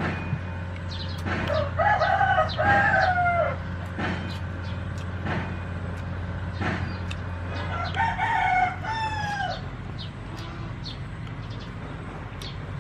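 Rooster crowing twice, each crow a long held call that falls in pitch at the end, with scattered faint clicks between.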